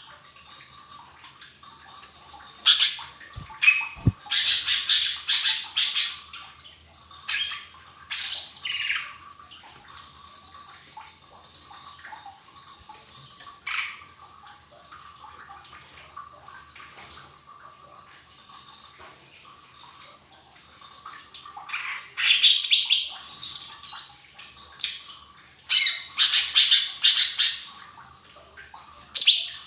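Lesser green leafbird (cucak ijo mini) calling in two bouts of loud, fast, chattering and squawking calls, one starting about three seconds in and the other about twenty-two seconds in, with only scattered short notes between them.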